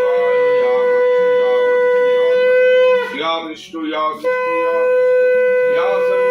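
Conch shell (shankha) blown as a ritual call during puja worship: long steady blasts held on one pitch. The first breaks off about three seconds in, and the next starts a second later.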